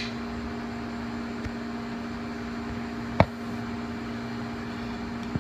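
A steady low machine hum, with one sharp click about three seconds in as a metal fishing snap clip is snapped shut.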